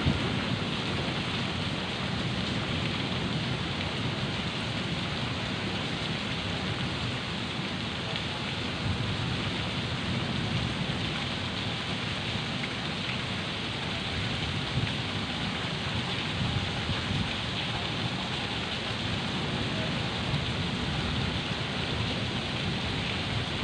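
Heavy rain pouring down steadily, an even, unbroken wash of noise.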